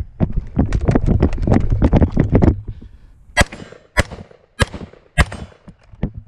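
Carbine fired four times at an even pace, a little over half a second apart, in the second half. Before the shots, a couple of seconds of dense rattling clatter.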